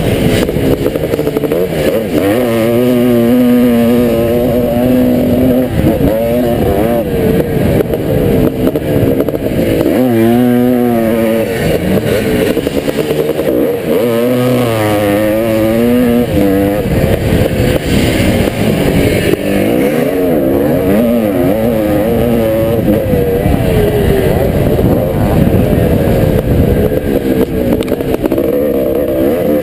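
Motocross bike's engine, close up from the rider's helmet, being raced hard: its pitch climbs and drops again and again as the rider accelerates, shifts and backs off through the turns.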